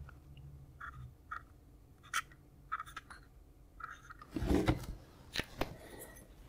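Short squeaky strokes of a marker pen writing on a circuit board, with small ticks. About four and a half seconds in come a cluster of louder knocks and rubbing as the power-supply board is handled and laid down on the cutting mat.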